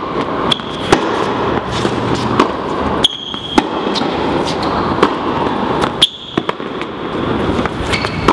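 Tennis rally: a string of sharp pops as racquets strike the ball and the ball bounces on the court, one every half second to a second, over a steady background noise.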